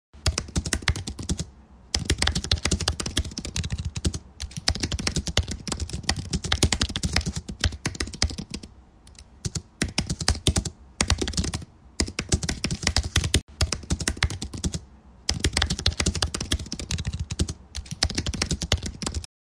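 Rapid computer-keyboard typing: quick keystroke clicks in runs of a few seconds, broken by short pauses.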